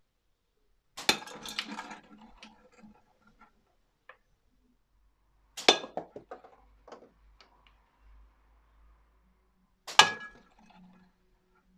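Three slingshot shots striking a hanging tin can target in a catch box, about a second, five and a half seconds and ten seconds in. Each is a sharp metallic clink followed by a scatter of smaller clicks and rattles.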